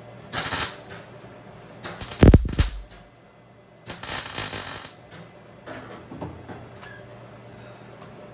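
Welder laying short bursts of weld on thin floor-pan steel: three bursts of about a second each, with a heavy knock during the second one.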